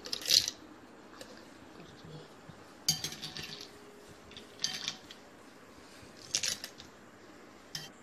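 Ice cubes tipped from a steel spoon into a stainless steel mixer jar, clattering against the metal. There are about five short clatters a second or two apart, one spoonful after another.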